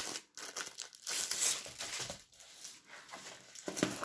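Clear plastic wrapping crinkling and rustling in irregular bursts as a rolled diamond painting canvas is slid out of its sleeve and unrolled, its plastic cover film rustling, loudest about a second in.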